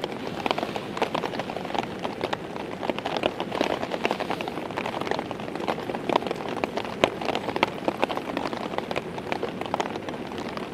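Heavy rain pattering steadily on a tarp shelter: a dense, irregular spatter of drop impacts over a constant hiss.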